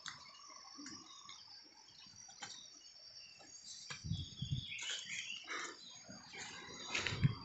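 Insects droning steadily in a high, even tone, with scattered clicks, and rustling and a few dull thumps about four seconds in and again near the end.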